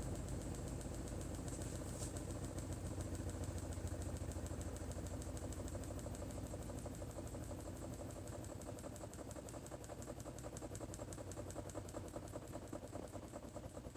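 Washing machine running: a steady mechanical hum with a fast, even pulsing that slowly fades over the whole stretch.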